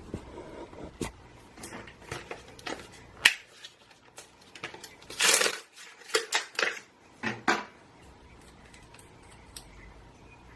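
Small handling noises: a sharp click about three seconds in, a brief rustle a couple of seconds later, then a few short knocks.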